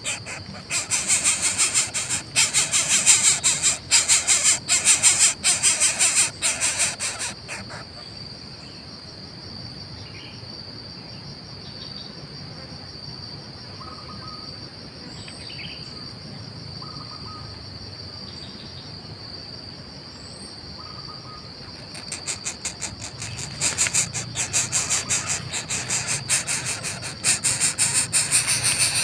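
Insects chirring in loud, rapidly pulsing stretches for the first seven seconds or so and again from about 22 seconds in, over a steady high-pitched insect whine, with a few faint short chirps in the quieter middle part.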